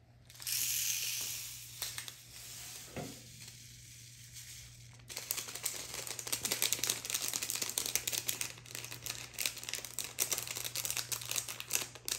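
Plastic drill bag crinkling as it is handled and opened. From about five seconds in, a stream of tiny resin diamond-painting drills pours out of the bag into a hard clear plastic box as a dense run of small clicks.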